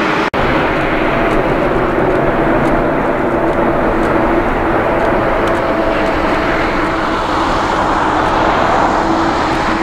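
Turbofan engines of a twin-engine ANA Boeing widebody running on the runway: a steady jet roar with a low hum through it. The sound cuts out for an instant just after the start.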